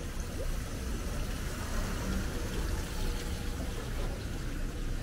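Steady outdoor ambience in light rain: an even hiss of rain with a low rumble underneath.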